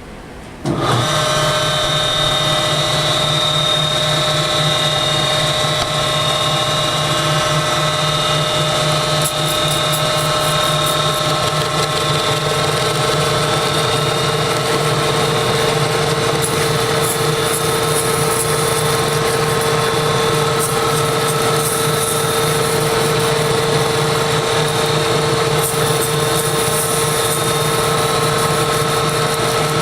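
Milling machine started about a second in and running in back gear at 325 RPM, a hogging mill taking a full-depth cut across the end of a part in one pass. It is a little loud: a steady whine over the grinding noise of the cut.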